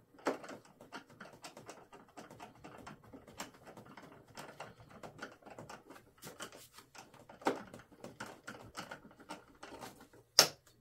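A small hand screwdriver turning a screw in the plastic tail mount of a foam RC plane: irregular small clicks and scrapes, with a few sharper clicks and a loud click near the end. The screw does not feel tight and will not back out.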